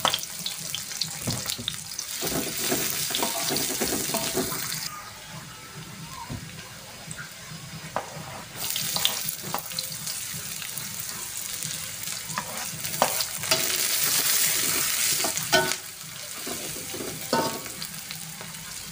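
Sliced shallots, garlic and chilies sizzling in hot oil in a large wok, stirred with a spatula that scrapes and knocks against the pan. The sizzle drops away for a few seconds about five seconds in, then comes back.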